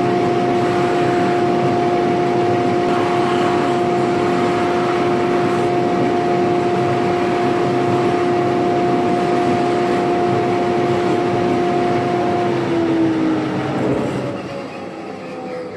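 Bench buffing motor running steadily with a wheel on its spindle while an annealed brass tube is held against it to scrub off fire scale, with a rough scrubbing sound over the motor's hum. About 13 seconds in the motor is switched off and its hum falls in pitch as it spins down.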